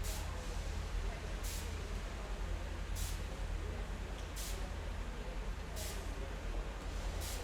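Train station ambience: a steady low rumble under a wash of background noise, with a short hiss recurring evenly about every second and a half.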